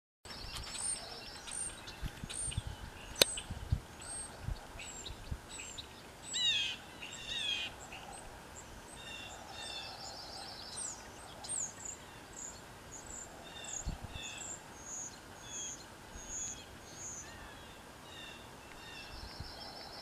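Songbirds singing: many short, high chirps repeated throughout, mixed with a few brief buzzy trills. A few soft low thumps and one sharp click about three seconds in, the loudest sound.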